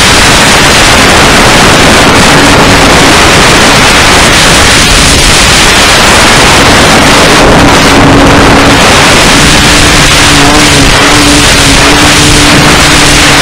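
Control-line model airplane's motor running at full power, heard from a camera on the fuselage, with a steady buzzing note under heavy wind rush; loud throughout.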